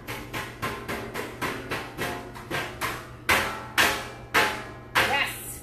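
Metal chair dragged across a hard floor, juddering in a rapid run of scraping knocks about five a second. From a little past halfway the knocks come slower and louder, about two a second.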